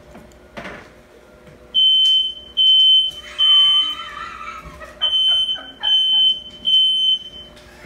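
Smoke alarm going off, set off by smoke from burnt bacon. Loud high-pitched beeps start about two seconds in and come in groups of three, with a short pause between groups.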